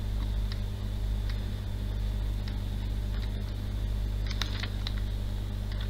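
Steady low electrical hum, with a few faint, light clicks from drawing on a computer, a small cluster of them about four and a half seconds in.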